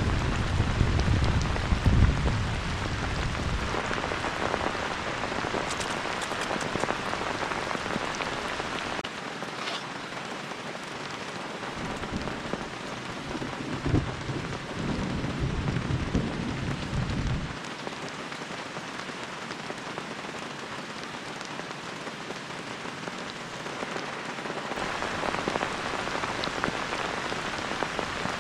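Heavy rain falling steadily, with a low rumble in the first few seconds and again around the middle.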